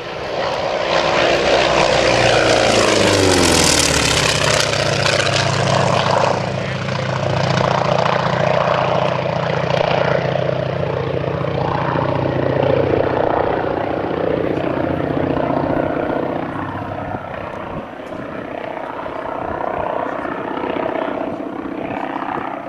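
Grumman FM-2 Wildcat's Wright R-1820 nine-cylinder radial engine and propeller during a low pass, the pitch dropping as the fighter goes by about three seconds in. It then runs on at a lower pitch as the plane moves away, swelling and fading in loudness.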